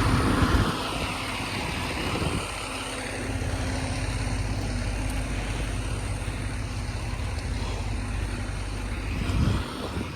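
A fire apparatus's diesel engine running steadily with a low drone, which dips briefly twice and falls off near the end.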